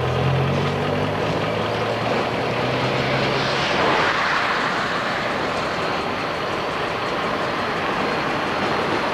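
Diesel-hauled freight train running on the tracks below: a low steady engine hum for the first few seconds, then a broad noise that swells about four seconds in and holds steady.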